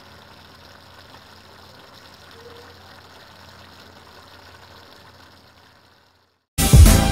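Pan of ground beef, cauliflower and pechay simmering in sauce: a faint steady hiss that fades out about six seconds in. Loud music starts near the end.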